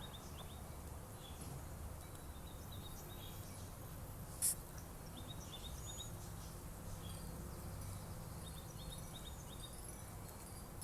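Outdoor background: a steady low rumble with faint, short bird chirps on and off, and a single sharp click about four and a half seconds in.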